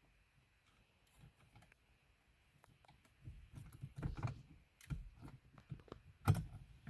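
Irregular clicks and taps of hand tools against a dashboard's plastic trim as a T20 Torx screw is worked loose. Faint at first, busier from about halfway, with one louder knock near the end.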